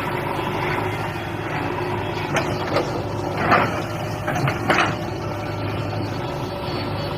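Heavy diesel machinery running steadily, a backhoe loader or tractor engine at work, with a few short knocks or scrapes between about two and a half and five seconds in.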